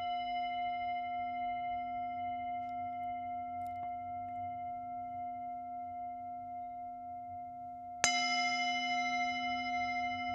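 Singing bowl ringing and slowly dying away with a gentle pulsing in its tone, then struck once about eight seconds in, the ring starting afresh.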